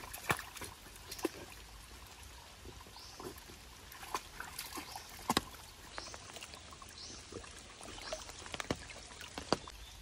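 Shallow stream trickling, with irregular small splashes and slaps of water as a Samoyed wades and noses about in it; a few sharper splashes stand out.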